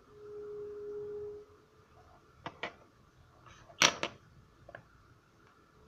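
A few sharp clicks and taps as tweezers and a metal watch-movement holder are handled on the bench: a pair about two and a half seconds in, the loudest double click about four seconds in, and a faint tap after. Before them, a steady high hum lasts about a second and a half.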